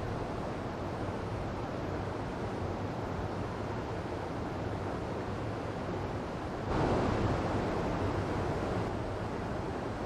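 Small waterfall and running stream, a steady rushing of water that swells louder about two-thirds of the way through for a couple of seconds before settling back.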